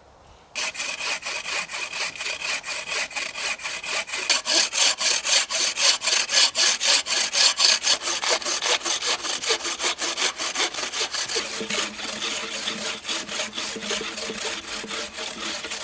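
Two wooden-frame bucksaws sawing through a dense ironwood log in fast, rhythmic push-pull strokes. The sawing starts about half a second in and gets louder from about four seconds in.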